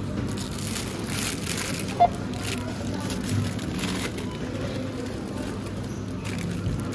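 Supermarket background din: the indistinct murmur of shoppers' voices and general store noise, with one short sharp click or beep about two seconds in.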